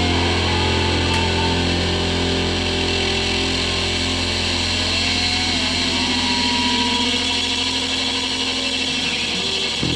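Distorted electric guitars holding a sustained drone as a rock song rings out at its end, with feedback tones that waver and glide above it.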